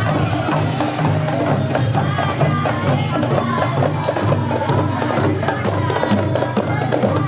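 Rhythmic music: bright jingles struck on a steady beat, about two a second, over a dense low drum pattern.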